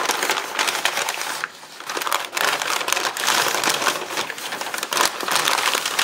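Brown paper lunch bag crinkling and rustling as it is opened up, crumpled around and pressed flat by hand, with a short lull about a second and a half in.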